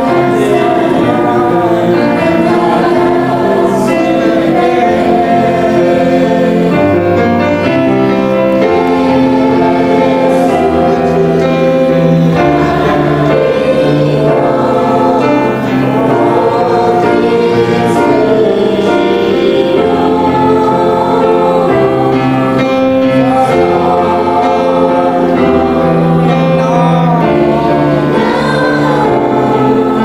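A group of voices singing a Japanese worship song together, choir-like, over musical accompaniment with a steady bass line.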